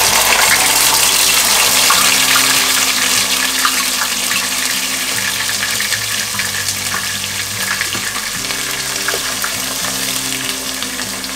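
Onion paste sizzling in hot ghee and oil with whole spices, loud as it hits the fat and settling gradually quieter.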